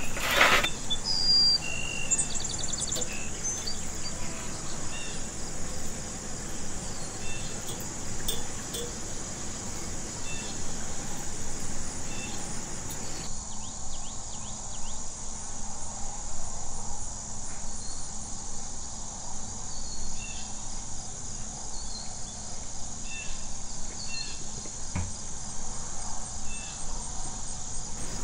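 Crickets trilling in a steady, high, continuous chirr, with scattered short chirps over it.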